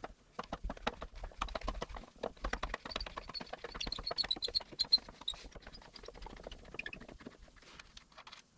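Screwdriver undoing a Phillips head screw in brass door-latch hardware: a long run of small, quick metallic clicks, denser and with a faint metallic ring in the middle of the run.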